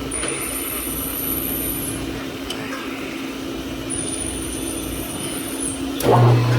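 Metal lathe running with a steady hum, with a thin high whine coming in twice. About six seconds in, a louder, deeper hum starts up and holds.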